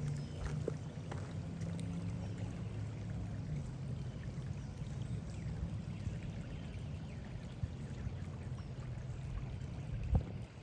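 Steady rush of running water, with a faint low hum in the first few seconds and a single sharp knock near the end.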